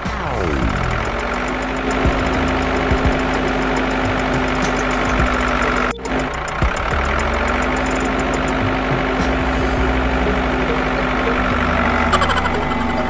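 Tractor engine idling steadily, with a knocking chug and a steady low hum. It cuts out briefly about six seconds in and picks up again.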